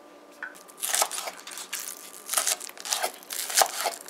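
Kitchen knife slicing through scallions onto a wooden cutting board: a run of crisp, crunchy cuts at an uneven pace, starting about a second in.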